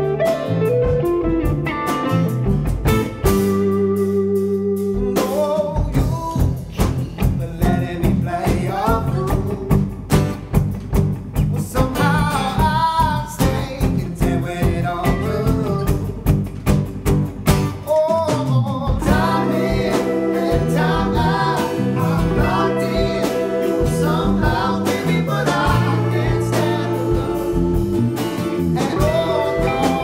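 A live band song: strummed electric and acoustic guitars with a man singing over them.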